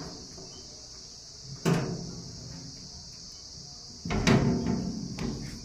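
A steady high chirring of crickets, broken by a short knock about a second and a half in and a louder, longer clatter of knocks about four seconds in.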